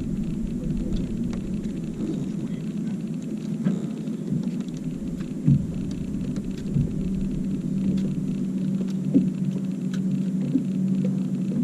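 Steady low hum of a fishing boat's motor, with a tone that grows stronger about seven seconds in, and a few light knocks scattered through it.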